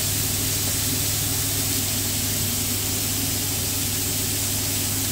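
Kitchen extractor fan running with a steady hum, over the even hiss of frying: pork fillets sizzling in frying pans and chips bubbling in a deep fat fryer.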